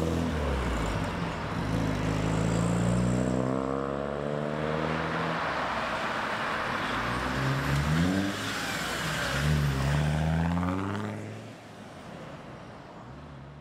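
Several cars pulling away and driving past one after another, their engine notes rising as each accelerates. The engine sound drops away to a lower level about eleven seconds in.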